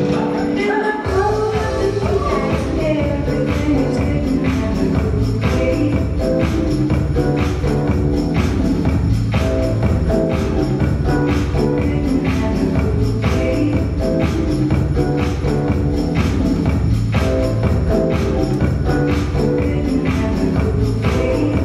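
Recorded pop-electronic dance music playing loud with a steady beat; the bass drops out for a moment and comes back in about a second in.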